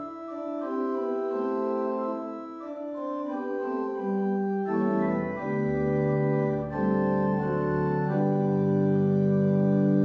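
Organ music: slow, sustained chords held for a second or two each, with the bass line moving under them.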